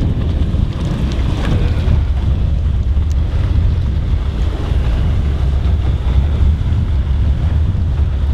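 Loud, steady wind rumble on the microphone, with a small outboard-motor skiff running at speed across the water.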